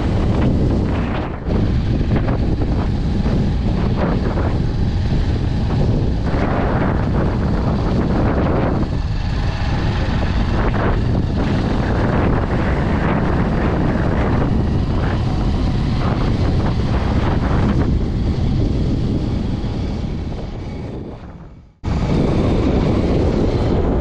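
Wind buffeting an action camera's microphone: a loud, gusty rumble that drops out briefly twice, the second time fading away before cutting straight back in.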